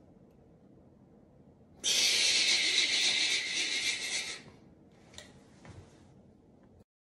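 Toy light-up lightsaber's built-in sound effect from its small speaker: a harsh, hissing buzz for about two and a half seconds as the saber is switched on, followed by two faint clicks.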